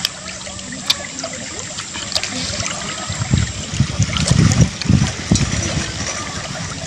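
A man chewing and eating with his fingers, with a few wet mouth clicks and a run of low chewing sounds from about three to five seconds in, over a steady trickle of running water.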